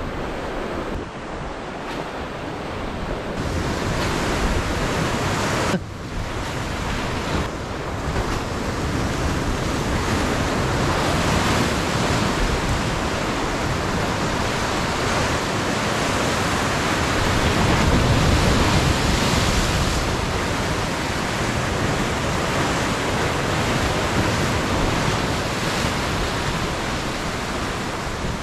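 Ocean surf washing and breaking against a lava-rock shoreline, with wind on the microphone, a steady rush of noise that swells somewhat past the middle and dips briefly about six seconds in.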